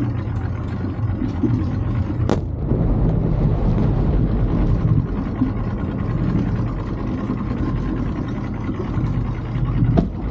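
Boat's outboard motor running steadily at low speed, a continuous low rumble. A single sharp bang about two seconds in, a firework going off, with a fainter crack near the end.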